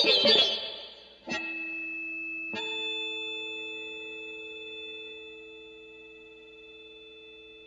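Background music: a plucked guitar passage dies away, then two chords are struck about a second apart and the last one rings on, slowly fading.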